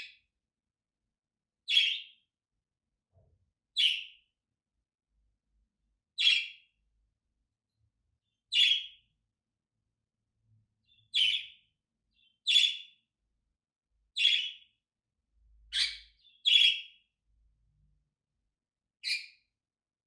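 A budgerigar giving short, sharp calling chirps, one about every two seconds with quiet gaps between, about ten in all.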